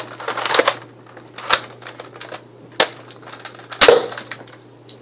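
Nerf crossbow blaster being handled and fired: a run of hard plastic clicks and clacks, then single sharp snaps about one and a half, three and four seconds in, the last the loudest.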